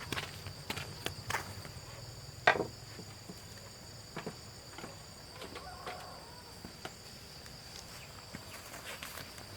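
A steady high insect drone with scattered light clicks and taps, and one louder knock about two and a half seconds in.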